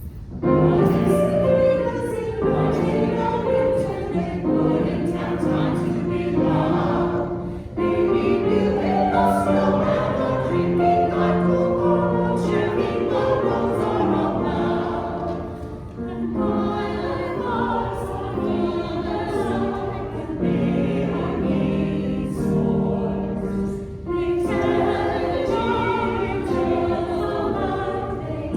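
Choir singing a choral piece. It comes in abruptly right at the start and moves in phrases that break briefly and begin again about every eight seconds.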